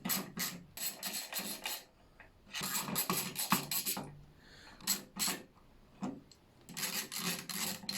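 Hand tool unscrewing the bolts around a motorcycle fuel tank's filler cap: rasping, clicking metal noise in four bursts with short pauses between.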